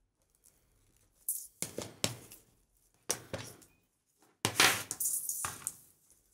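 Satin ribbon rustling and swishing as hands pull and tie it around a plastic favour box, in three short bursts with a few light clicks, the last and longest lasting just over a second.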